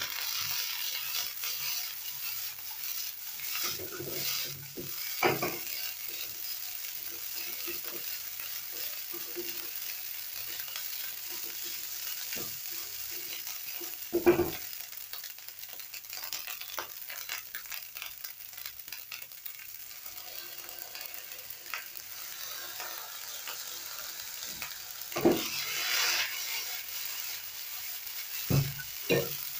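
Rice and diced vegetables sizzling in a hot nonstick frying pan as they are stirred with a spatula and tossed by shaking the pan. Occasional sharp knocks from the spatula and pan, the loudest about fourteen seconds in, with several more near the end.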